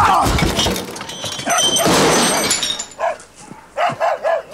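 A loud noisy clatter with some metallic ringing in the first half, then a dog giving short high yelps and barks near the end.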